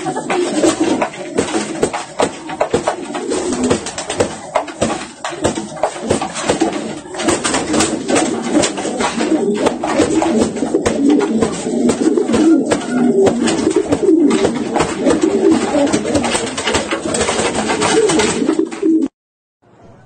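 Pigeons cooing continuously, with flurries of wing flapping and wing slaps from a brooding pigeon beating its wings at an intruder beside its nest. The sound cuts off abruptly about a second before the end.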